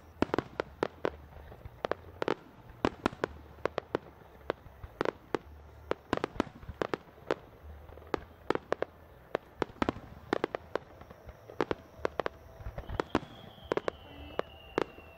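Starmine fireworks barrage: an irregular string of sharp bangs from aerial shells bursting, often several a second. A faint falling whistle joins near the end.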